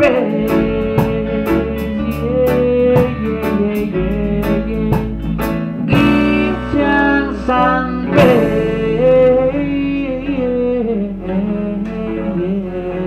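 Live reggae band playing: electric guitar, keyboard and drum kit together, with cymbal ticks keeping time.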